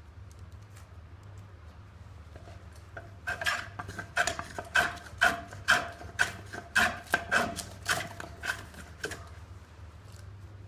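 Hand plane shaving a pine log in a run of about a dozen short, sharp scraping strokes, about two a second. The strokes start about three seconds in and stop near the end.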